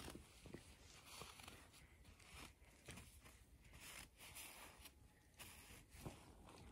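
Near silence, with faint, irregular crunching of snow.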